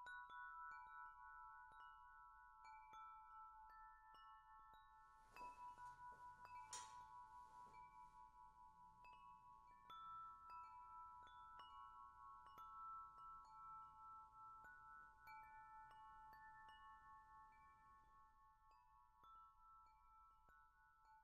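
Faint wind chimes ringing, with many soft strikes whose tones overlap and ring on. A brief rustle with a sharp click comes about five to seven seconds in.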